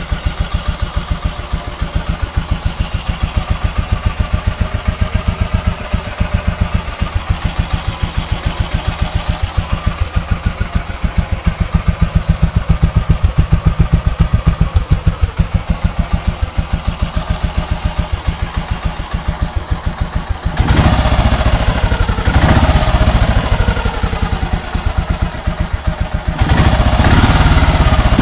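Royal Enfield Bullet's aluminium-alloy AVL single-cylinder four-stroke engine idling with an even thump. It is revved up twice in the last third, once around twenty seconds in and again near the end.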